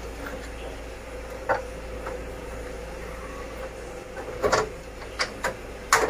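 Scattered small clicks and knocks of a screwdriver and wires being worked loose at the terminal block of a split air-conditioner indoor unit: one about a second and a half in, a louder pair about four and a half seconds in, and three quick ones near the end, over a steady low hum.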